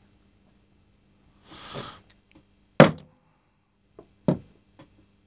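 Small hammer tapping a steel detent ball into its hole in a folding knife's steel plate, which rests on a wooden table: one sharp strike about three seconds in, then a few lighter taps near the end. The ball does not go into place.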